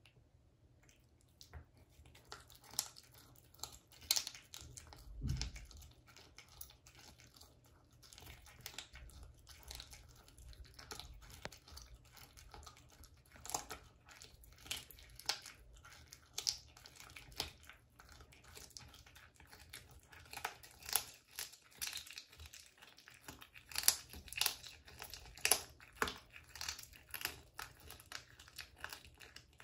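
A cat chewing and crunching a raw duck foot, a run of short irregular crunches and clicks, with a dull low thump about five seconds in.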